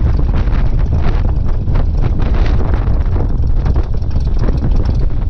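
Cessna 172's engine and propeller running with a steady low rumble, with wind buffeting the microphone.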